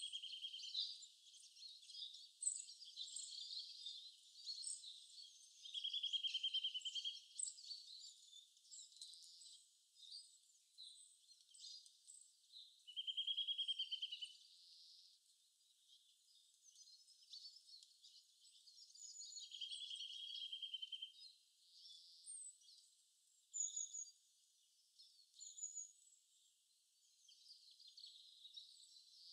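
Birdsong ambience: many short, high chirps, with a rapid trill that comes back four times, about every seven seconds.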